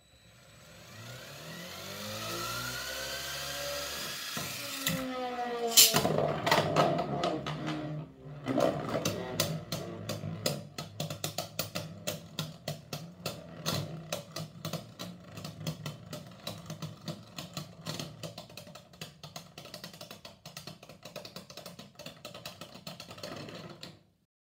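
Electric motor of a Lego Technic launcher, driven by a BuWizz controller at full power, whining as it spins up a Lego spinning top, with a sharp clack about five seconds in as the top is let go. The top then spins in a plastic Beyblade stadium against a Beyblade, rattling with rapid clicks as the two knock together, until the sound cuts off suddenly near the end.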